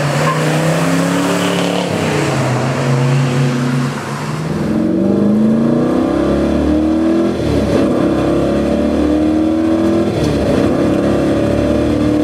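Muscle car engine accelerating hard through the gears, the note climbing and dropping back at each upshift. First it is the big-block V8 of a 1969 Chevelle SS396 with a four-speed pulling away, then another muscle car under hard acceleration.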